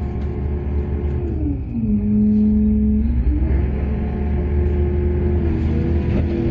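Heavy diesel engine of mining machinery running with a deep rumble; its pitch drops about a second and a half in, holds lower for over a second, then climbs back, as the engine works under load.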